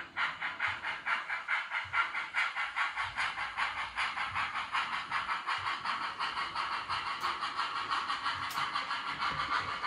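Factory-fitted Loksound 5 sound decoder in an Accurascale OO gauge GWR Manor 4-6-0 model, playing steam exhaust chuffs through the model's small onboard speaker. The chuffs come as a rapid, regular beat with hiss and cut in suddenly at the start.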